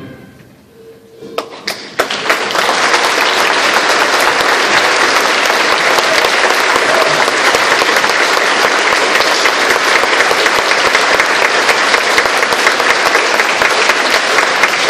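A concert band's final chord dies away into a brief hush. A few claps follow, and about two seconds in the audience breaks into steady applause that keeps going.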